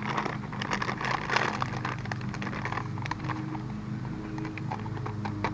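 Foil potato chip bag crinkling and rustling as a hand rummages in it, with the crunch of hot sauce potato chips being chewed; the crackling is densest in the first couple of seconds and thins to scattered crinkles.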